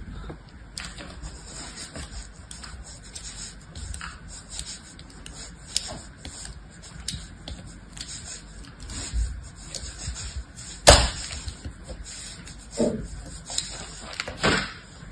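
Small knife blade scoring crosshatch lines into bars of dry soap: a run of short scraping strokes, with a few louder knocks in the second half.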